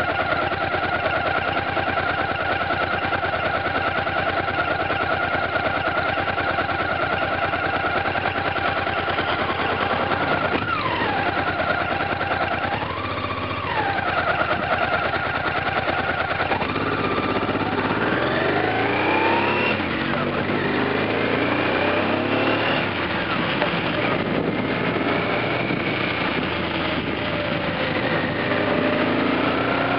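Motorcycle engine idling steadily, dipping and rising in pitch briefly about ten seconds in, then pulling away and accelerating with several rising sweeps in pitch. Road and wind noise rushes in once it is under way.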